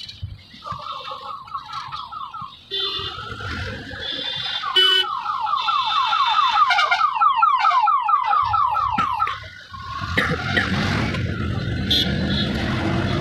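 A vehicle's electronic warning tone chirping rapidly, about six rising chirps a second, in two runs: a short one near the start and a longer one in the middle. From about ten seconds in, the steady low running of the auto-rickshaw's engine and traffic noise take over.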